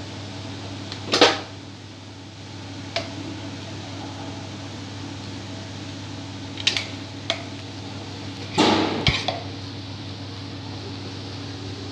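Metal spoon scraping and knocking against the sides of an aluminium pressure cooker while mixing rice: a loud knock about a second in, single ones near three and seven seconds, and a short cluster a little after eight seconds. A steady low hum runs underneath.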